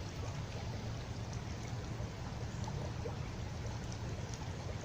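Small creek water running steadily, an even rushing trickle, with a few faint ticks of soil or stones being moved.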